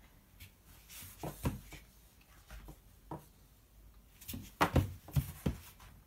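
Light knocks and bumps of a toddler's hands on wooden furniture: a couple about a second and a half in, then a louder cluster of knocks around four to five seconds in.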